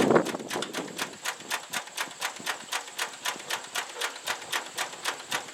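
IH Cub four-cylinder flathead engine on a hay baler being hand-cranked without firing. Its turning gives an even run of sharp metallic clicks, about four or five a second. A loud knock comes right at the start as cranking begins.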